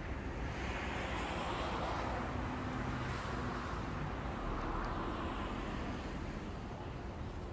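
Street traffic: the noise of a passing vehicle swells and fades, with a second swell about five seconds in, over a low outdoor rumble.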